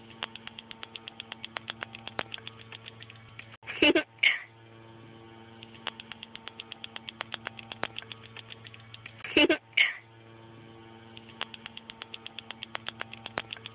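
Rapid wet clicking of a tongue flapping in and out of the mouth, about eight clicks a second and growing louder over a few seconds, then two short loud vocal bursts. The sequence repeats about every five and a half seconds, over a steady low hum.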